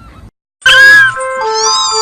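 After a moment of silence, a cat gives one loud meow about half a second in. A simple melody of held notes then starts.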